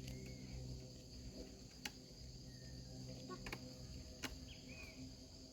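Faint steady insect trilling, with a few sharp clicks.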